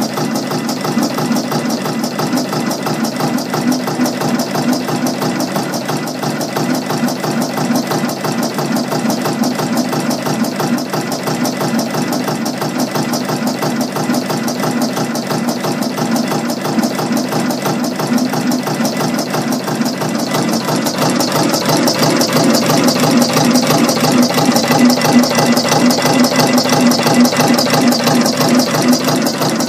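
Decor two-colour automatic rhinestone machine running a design: a fast, steady mechanical clatter as its head picks up and places hotfix rhinestones from the spinning hoppers. The clatter grows louder about two-thirds of the way through.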